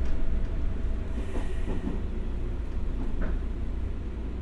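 Running noise inside the passenger cabin of a JR 201 series electric commuter train: a steady low rumble of the wheels on the rails, with a few faint knocks and clicks.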